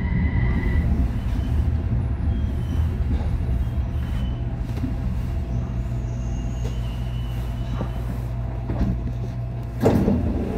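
Rubber-tyred light metro train running on its guideway, heard from inside: a steady low rumble as it pulls away from the station. A high steady tone stops within the first second, and a short loud knock comes near the end.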